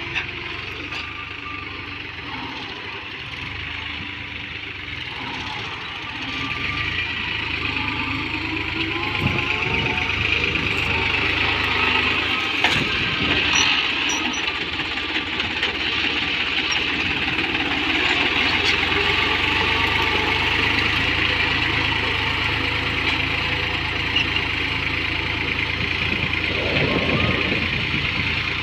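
Diesel tractor engine running steadily under ploughing work, growing louder about six seconds in.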